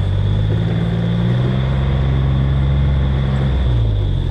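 Off-road farm vehicle engine running steadily at low speed, a deep even drone whose note dips briefly near the end.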